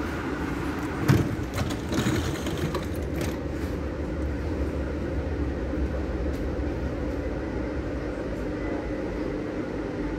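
Interior of a Series 4000 metro train standing at a station platform: a steady low hum and rumble from the car's equipment, with a sharp clunk about a second in and a few lighter clicks over the next two seconds.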